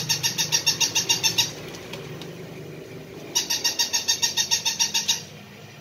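Battery-operated plush toy puppy giving two runs of rapid, evenly spaced electronic yips, about seven a second, each run lasting under two seconds, the first ending about a second and a half in and the second starting about halfway through, with a faint low hum underneath.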